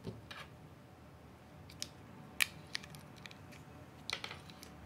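A few sharp small clicks and taps as a smartwatch is fitted onto its round magnetic charging puck and handled, the loudest click about halfway through.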